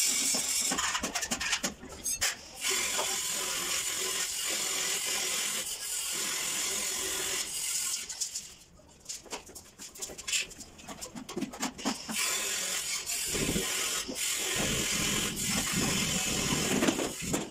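Hand tiling work: a trowel scraping tile adhesive in a plastic bucket and spreading it, with scattered knocks and scrapes. The sounds ease off briefly near the middle, then scraping picks up again in the last few seconds.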